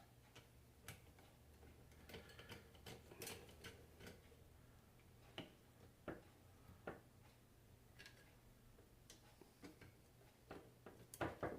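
Near silence broken by faint, irregular light clicks and taps as alternator parts are handled by hand, with a slightly louder cluster near the end.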